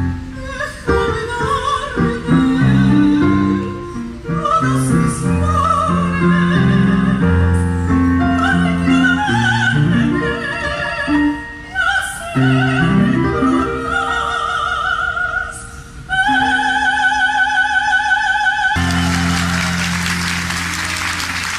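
A woman singing with strong vibrato to piano accompaniment, closing on a long held note. Applause breaks out near the end as the piano's final chord rings on.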